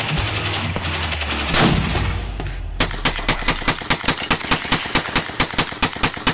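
Gunfire, with a loud blast about a second and a half in. From about three seconds in, a rifle fires in rapid succession, about six shots a second.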